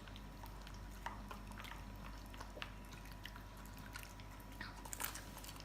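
Shih Tzu dogs eating meatballs with chicken: faint, irregular clicks and smacks of chewing, a little busier about five seconds in.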